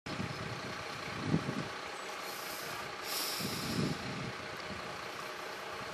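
A heavy vehicle's engine idling steadily, with a short hiss about halfway through.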